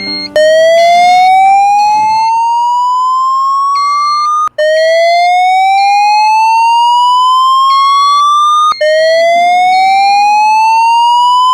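Fire alarm voice-evacuation speaker sounding its slow-whoop alert tone: three rising sweeps, each about four seconds long, played between the recorded evacuation messages.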